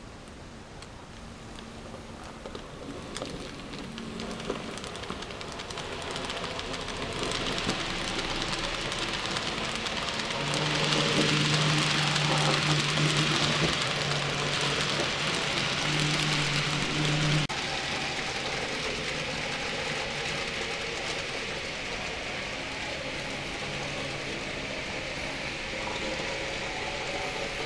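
N-scale model trains running on the layout: wheels rattling on the track with the steady hum of a locomotive motor. The sound builds over several seconds and is loudest for about seven seconds in the middle as a train passes close, where the hum cuts off suddenly, leaving a quieter rattle.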